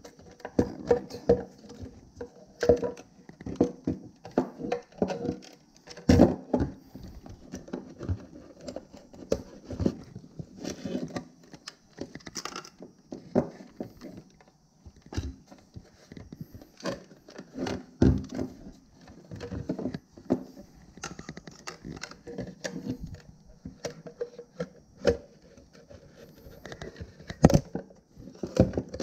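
Plastic fuel pump module being handled and fitted back together: irregular clicks, knocks and rattles of plastic parts against each other and against the wooden bench.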